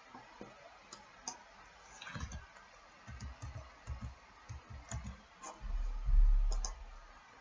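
Computer keyboard and mouse clicks: scattered sharp taps with a run of dull low knocks through the middle, then a louder, longer low rumble near the end.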